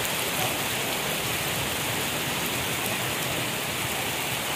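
Heavy rain pouring down steadily on a paved street.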